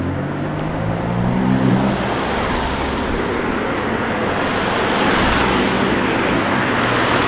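Cars driving past on a road. An engine hum comes as one car goes by in the first two seconds, then tyre and road noise swells as another car passes close about five seconds in.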